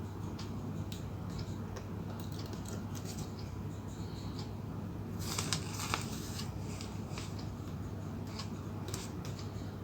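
Small clicks and scratches of electronic parts and jumper wires being handled and pushed into a plastic breadboard, with a brief louder rustle a little past the middle, over a steady low electrical hum.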